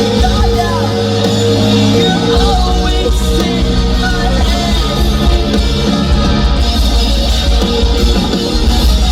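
Live post-hardcore band playing loud and continuously: electric guitars, bass and drum kit.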